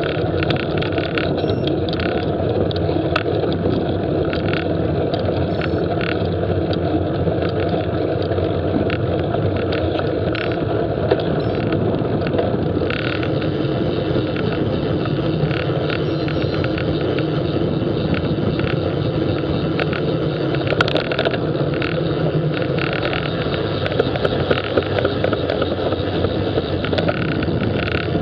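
Steady wind and road noise from riding a bicycle, with scattered light clicks and knocks.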